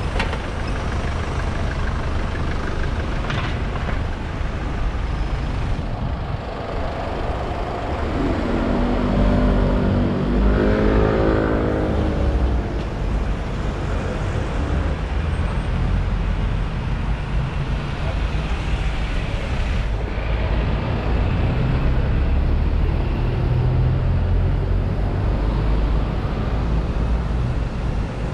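Busy street traffic: buses and cars running past in a steady rumble, with wind buffeting the microphone. About a third of the way in, a nearby vehicle's engine hum swells and fades.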